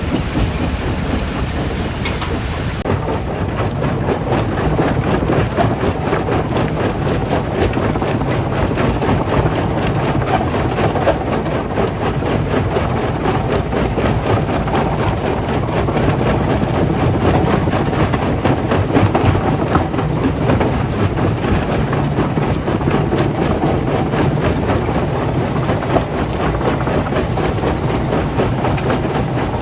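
Heavy stone-crushing plant machinery running steadily: a low engine and motor hum under a continuous rattle and clatter of rock being crushed and moved.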